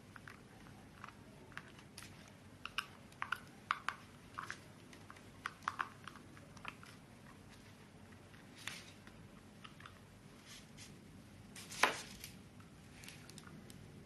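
Small screwdriver working screws out of the underside of a plastic foot switch: a scatter of light, irregular clicks and ticks of metal on screw heads and plastic, with one sharper click a little before the end.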